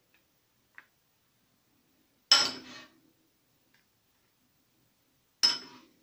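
Metal spoon clinking twice against a ceramic dish, about three seconds apart, each a sharp knock with a short ring, as chopped onion is spooned onto a plate.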